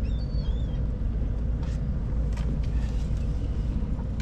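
Steady low rumble of background noise aboard a fishing boat on the river. A short wavering chirp comes right at the start, and there are a few faint knocks later on.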